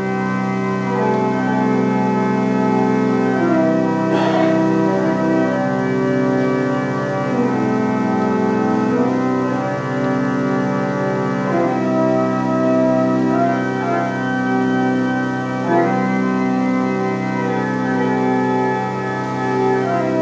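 1,972-pipe Aeolian pipe organ played as a chordal piece: sustained chords over a held bass, with the upper notes changing every second or two.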